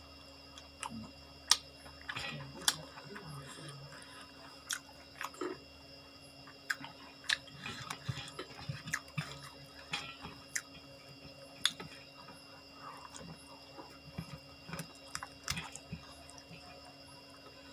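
A person chewing food close to the microphone, with irregular sharp crunches and mouth clicks, the loudest about one and a half and eleven and a half seconds in.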